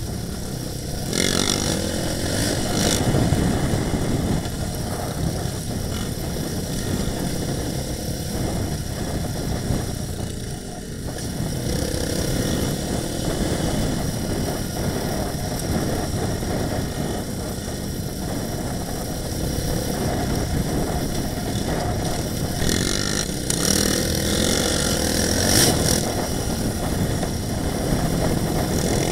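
Engine of an off-road vehicle running as it rides a gravel trail, with the engines of the quads ahead. Extra hiss swells about a second in and again near the end.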